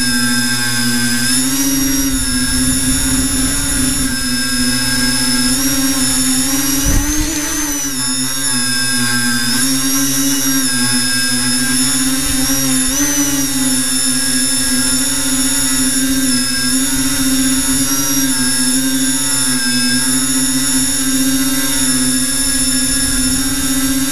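Electric motors and propellers of an FPV tricopter whining, heard from the onboard camera, the pitch wavering up and down with throttle. A brief knock about seven seconds in.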